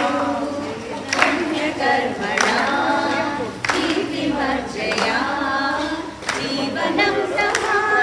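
A group of people singing together.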